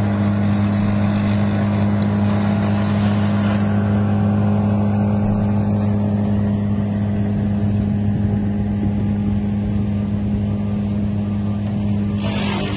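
Steady drone of an idling engine from the street work vehicles at the scene, with a broad hiss over the first few seconds.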